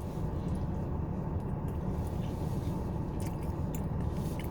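A person chewing food close to the microphone, with a few soft clicks, over a steady low hum inside a car.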